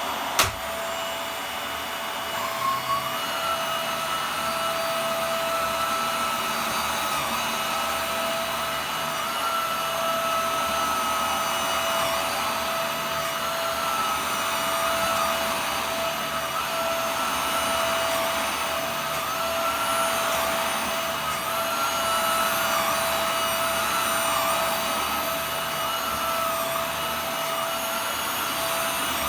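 Hoover Air Steerable bagless upright vacuum cleaner running steadily. Its motor whine wavers slightly in pitch as it is pushed over the carpet, and there is a sharp click near the start. It is fairly quiet for an upright, not too noisy.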